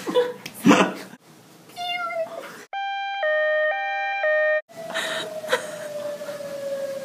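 Voice-made sound effects: short squeaky, cat-like vocal noises, then about two seconds of electronic beeps stepping between a few pitches that start and stop abruptly, then a long, slowly falling tone.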